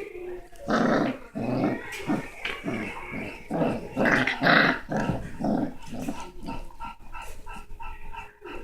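European basset hounds growling in play: a run of short growls, loudest in the first half, giving way to softer, quicker sounds near the end.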